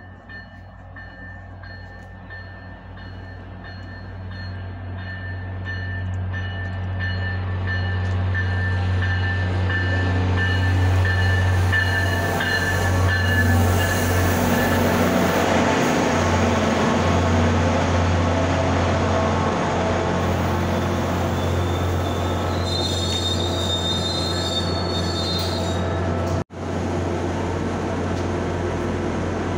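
Diesel locomotive of an MBTA commuter rail train pulling into a station, its engine a low steady drone that grows louder as it approaches and passes. A high, wavering squeal comes in about three-quarters of the way through as the train slows to a stop. The sound cuts out for an instant shortly after.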